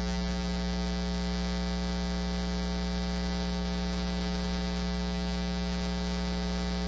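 Steady electrical mains hum: a low, even buzz with many evenly spaced overtones that neither rises nor falls.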